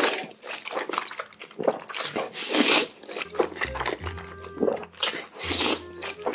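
Loud slurping of black-bean-sauce noodles (jjajangmyeon) sucked up in big mouthfuls, several slurps with the loudest about two and a half and five and a half seconds in, over background music.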